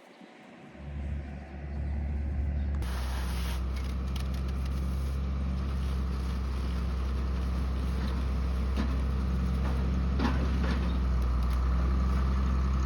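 Farm tractor engine running steadily. It comes in about a second in and grows louder and fuller about three seconds in.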